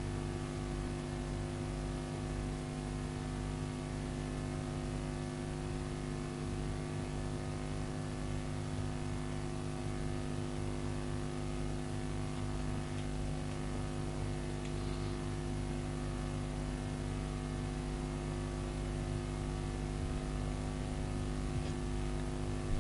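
Steady electrical mains hum with its stack of overtones and a faint hiss beneath, unchanging throughout.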